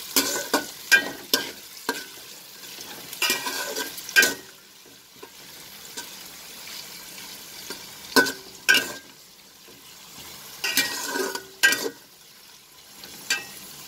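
Spatula stirring sliced onions in a metal pot, scraping across the pan bottom in several short bursts of strokes, with a steady low sizzle of the onions frying in oil between them.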